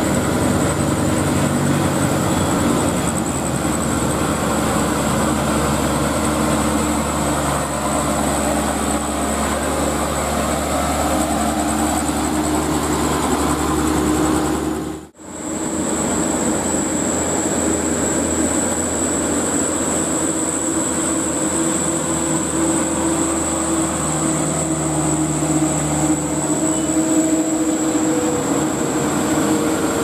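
Diesel dump trucks loaded with sand, climbing a hill with their engines running under load, and a steady high-pitched whine behind them throughout. The sound drops out briefly about halfway, then another truck's engine carries on.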